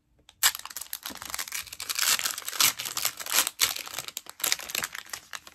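Foil trading-card pack wrapper being torn open and crinkled by hand, a dense run of crackling and rustling that starts about half a second in.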